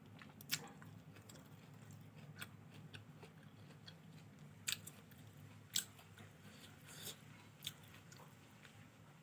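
Faint close-up sounds of a person chewing and biting fried rice, with a few short sharp clicks scattered through, over a steady low hum.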